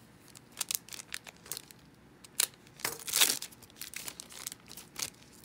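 Chrome trading cards and their foil pack wrappers being handled: a run of sharp clicks and short crinkling, rustling sounds, the loudest a rustle about three seconds in.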